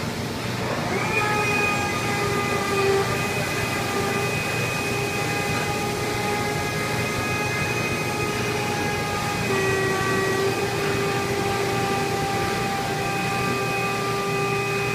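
Factory machinery in a paper lamination plant giving a steady pitched whine with several overtones: it climbs to pitch about a second in and then holds, over a constant background hum of the plant.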